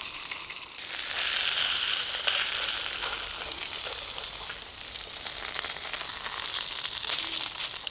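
Leberkäse and a slice of toast bread frying in oil in a small pan, with a steady sizzle and fine crackling that grows louder about a second in.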